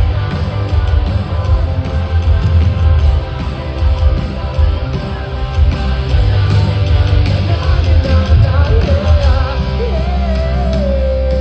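Live rock band playing loud, with heavy drums and bass under distorted guitars; a voice wavers and then holds a long note near the end.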